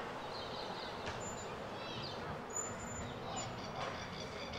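Open-air ambience at a football oval: a steady wash of distant noise with a few faint high bird chirps, and no single sound standing out.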